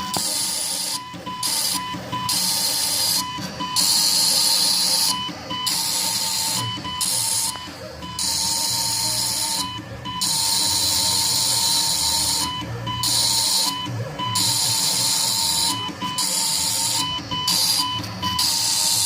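Arduino-controlled CNC engraver humming along: its motors whine at a steady pitch that steps slightly as the axes change direction, over a loud high hiss that cuts in and out every second or two as it engraves.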